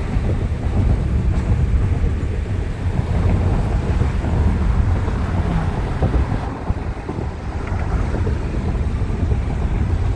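Wind buffeting the microphone in a moving car, a steady rushing roar heavy in the low end, with the rumble of the drive underneath.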